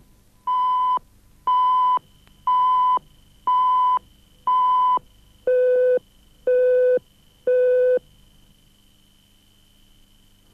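Broadcast countdown leader beeps: steady half-second tones, one a second, five at a higher pitch followed by three at a lower pitch. After that only a faint low hum remains.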